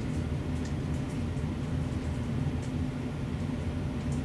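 A steady low hum, with a few faint clicks.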